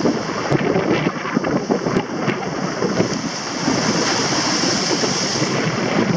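Rough sea breaking and washing over large rocks on a breakwater, a steady rushing surf with wind buffeting the microphone. The hiss of spray swells about four seconds in as a wave bursts over the boulders.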